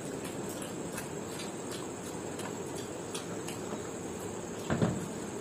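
Eating with the hands: fingers picking through chicken biryani on plates and mouths chewing, heard as small scattered clicks and smacks over a steady faint background hiss. A single heavier thump comes near the end.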